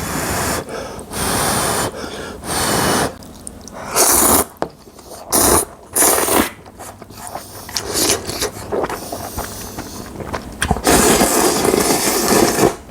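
A person slurping ramen noodles in a run of short, loud slurps, with a longer slurp of about two seconds near the end.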